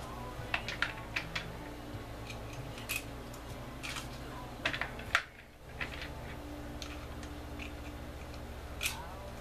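Hand-held priming tool clicking as small rifle primers are pressed into 5.7x28mm brass cases: irregular sharp clicks, several in quick succession near the start and then one every second or so, over a steady low hum.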